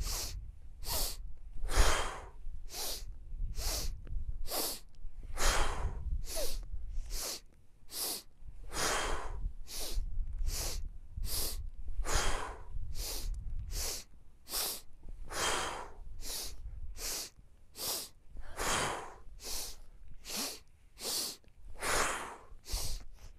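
Rhythmic breathwork: three quick, sharp sniffs in through the nose, then one longer breath out through the mouth, repeated in a steady cycle about every three seconds.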